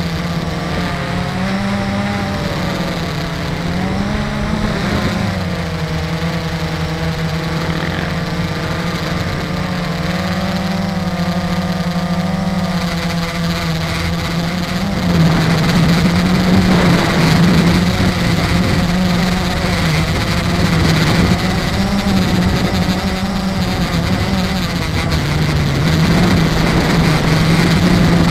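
The aerial camera drone's motors and propellers whirring, a steady hum whose pitch wavers up and down as the craft adjusts its flight. It gets louder about halfway through.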